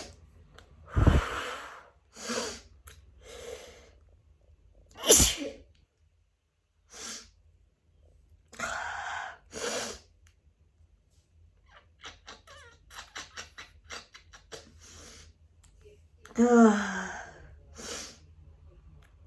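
A person in a fit of repeated sneezes brought on by grass and flower pollen. The loudest sneezes come about a second in, about five seconds in and near the end, with smaller sneezes and short, quick breaths between.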